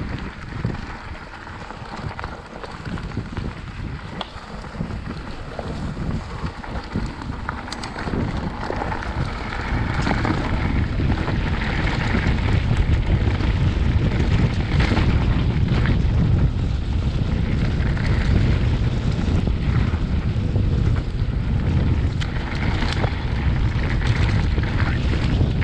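Wind rumbling on an action camera's microphone while a mountain bike rides a dirt trail, with short knocks and rattles from the bike going over the ground. The rumble grows louder about ten seconds in.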